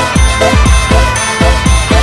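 Background electronic music with a fast, heavy bass beat, about four deep falling-pitch bass hits a second, under steady bell-like tones.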